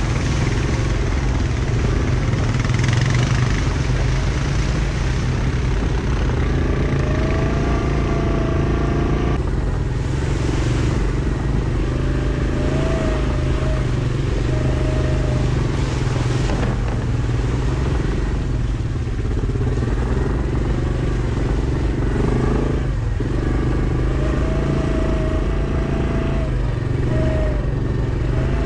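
Yamaha Kodiak ATV engine running under way, a steady low rumble with a whine that rises and falls several times as the throttle changes.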